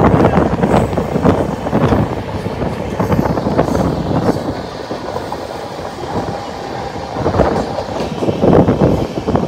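Suburban local train running at speed, heard from its open doorway: a steady rumble with wheels clattering over the rail joints. The clatter eases a little about halfway through and grows busier again near the end.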